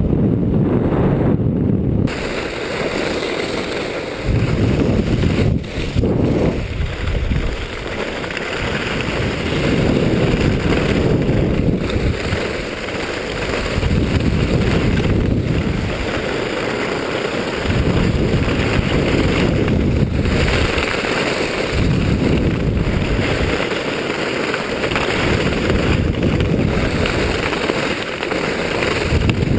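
Wind rushing over an action camera's microphone as the wearer skis downhill. Skis hiss and scrape on groomed snow underneath it, swelling and fading every few seconds with the turns.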